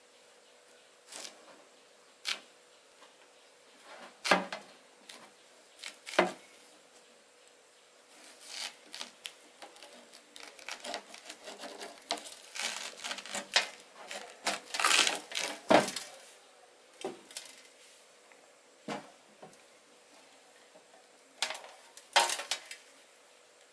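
Kitchen knife cutting through a large white yam (kaachil): irregular knocks and scraping strokes as the blade works into the tuber, few at first, then a dense run of them through the middle and another burst near the end, with the yam and knife knocking on a steel plate.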